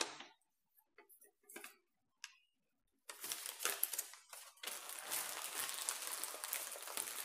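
A few faint paper rustles, then, from about three seconds in, steady crinkling and rustling of a plastic courier mailer bag as it is handled and pulled open.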